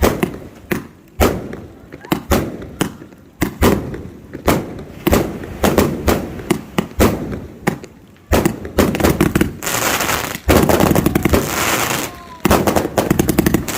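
A multi-shot fireworks cake firing, with separate sharp booms about two a second. About eight and a half seconds in it breaks into a dense, rapid barrage of shots and crackle.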